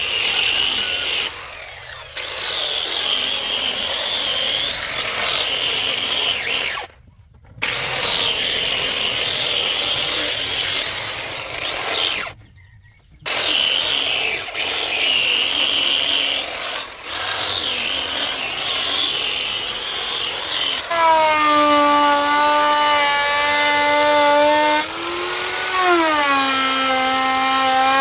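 A handheld power tool grinding or sanding into a wooden slab, with a wavering high whine as the cut comes and goes. It stops briefly twice. Near the end it gives way to a steady motor whine that rises and falls in pitch once.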